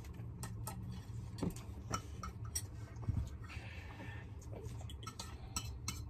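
Light, irregular clicks of a metal fork on a ceramic plate as fried noodles are eaten, with a brief slurp about three and a half seconds in, over a low steady hum.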